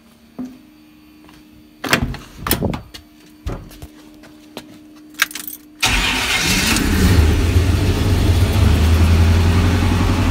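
A few knocks and clicks, then about six seconds in the S10's swapped-in V8 starts abruptly and runs at a steady idle with a low rumble.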